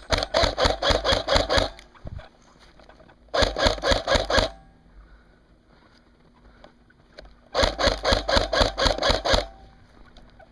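G&G Combat Machine electric airsoft rifle firing three full-auto bursts, each a rapid even rattle of shots lasting one to two seconds, with a few seconds of quiet between them.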